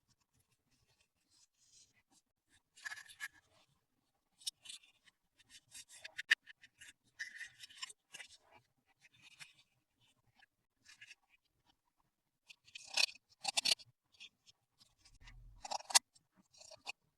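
Close-up handling of small plastic toys and packaging: scattered light clicks, taps and scraping rustles, with a short low thump about fifteen seconds in.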